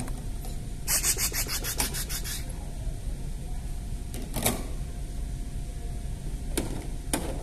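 Plastic toy kitchen being handled: about a second in, a quick run of about ten sharp plastic clicks lasting about a second and a half, then a clatter of plastic toy cookware and two single taps near the end.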